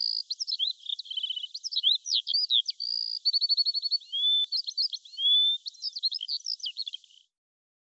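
Songbird singing: a fast, varied run of clear whistles, chirps and short rapid trills, cutting off abruptly about seven seconds in.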